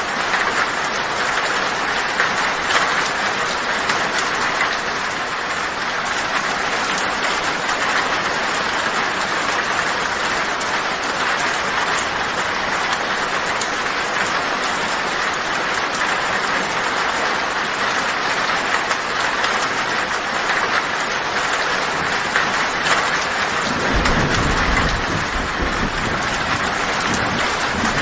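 Heavy rain drumming on a tin roof: a dense, steady patter of countless drops. About 24 seconds in, a low thunder rumble rises underneath and carries on.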